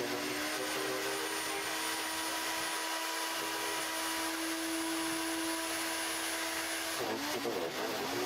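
Ryobi RSH2545B electric garden shredder running with a steady motor tone and a high whine. Near the end the steady tone breaks into a wavering one.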